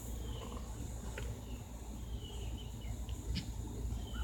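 Outdoor ambience: a steady high insect drone with short, repeated bird chirps over a low rumble.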